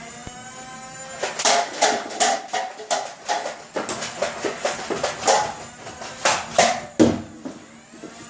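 Battery-powered Nerf Demolisher firing foam darts in rapid fire, with darts knocking down cups: an irregular string of sharp clicks and knocks from about a second in until near the end, the loudest near the end.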